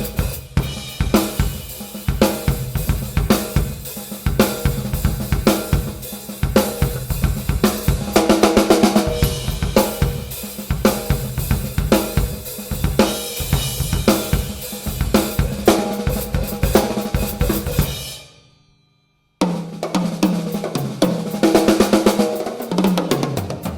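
TAMA Starclassic Maple drum kit played: a groove of bass drum, snare, hi-hat and cymbals with tom fills. The playing fades out about eighteen seconds in, leaving a second of silence, then starts again and ends with a fill that steps down through the toms.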